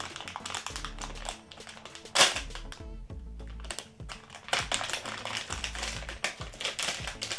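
Background music with a recurring low bass note, under rapid clicking and rustling from toy packaging being handled and opened. There is one sharp knock about two seconds in.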